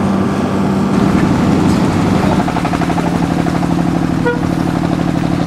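Engine of a moving road vehicle running steadily, heard from on board. Its pitch shifts about two and a half seconds in, after which it pulses evenly. A brief toot comes about four seconds in.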